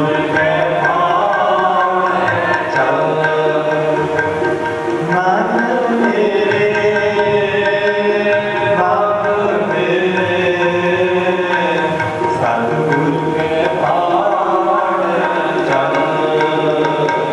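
Sikh shabad kirtan: a voice singing a devotional hymn with tabla accompaniment and steady held notes beneath.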